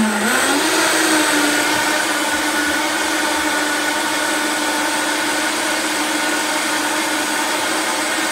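Vitamix blender motor running on high, churning soapy water in the container as a self-cleaning rinse: a steady whine whose pitch climbs in the first second and then holds.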